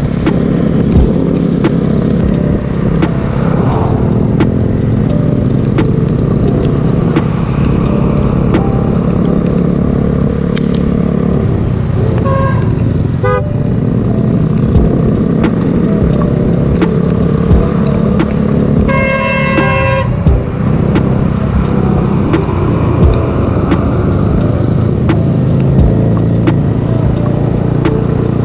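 Scooter riding along, its engine running steadily under heavy wind rush on the microphone. A vehicle horn sounds once for about a second, about two-thirds of the way through.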